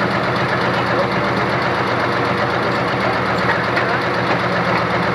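Pro Stock pulling tractor's turbocharged diesel engine idling steadily.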